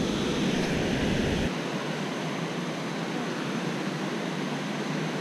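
Steady rushing of river water pouring over a low mill dam's spillway. A low rumble underneath cuts off about a second and a half in.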